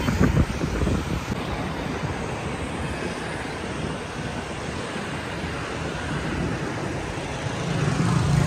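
Steady road traffic noise from cars and motorbikes crossing a bridge, growing louder near the end as vehicles pass close by.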